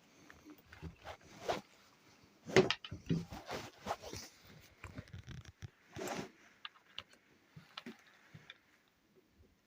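Wild boar grunting at close range, in irregular short bursts, with scattered rustles and clicks.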